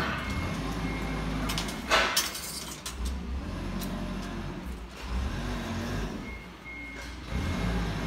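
A steady low rumble with a brief sharp rattle about two seconds in, as a tape measure is handled and extended.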